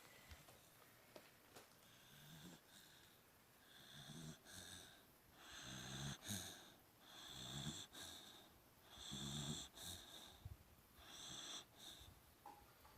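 Pet dog snoring in its sleep: about six faint snoring breaths, roughly one every two seconds, each with a high wheezy whistle over a low rattle.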